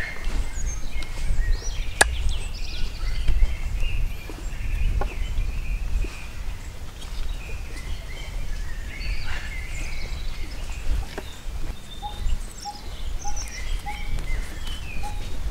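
Outdoor ambience: a steady low rumble of wind on the microphone, with birds chirping and calling throughout. A single sharp knock of the machete on wood about two seconds in, and a run of short repeated bird calls, about two a second, near the end.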